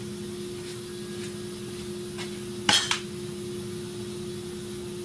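Hand tools clinking against metal: a few light clicks and a sharp double clink just past the middle, over a steady shop hum.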